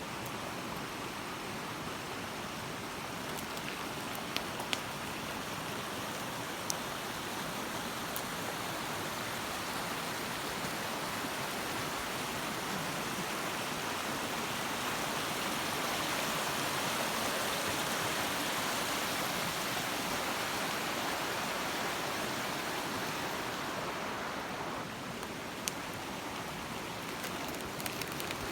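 Steady rushing noise of water, with a few sharp clicks scattered through it.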